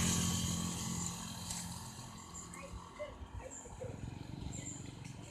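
A bus engine running past close by and fading away, with a rush of air as it goes by at the start, leaving faint traffic noise.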